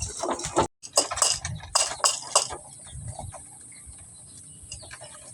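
Sharp clicks and taps of grain feed against a hard feeder, as pigeons feed. The clicks are dense at first and grow sparse after about two and a half seconds.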